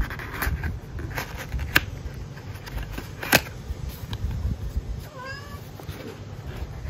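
Cardboard perfume box being handled and opened by hand: the paperboard sleeve and flaps rustle and scrape, with several sharp taps, the loudest about three seconds in. About five seconds in there is a brief squeak that rises then falls in pitch.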